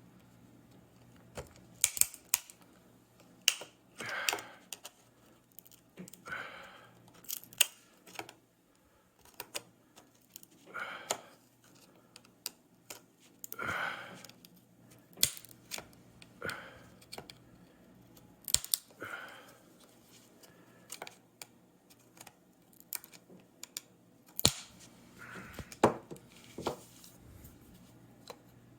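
Scattered small clicks and short scrapes of a tool prying at the plastic case of a Tile tracker, in irregular bursts.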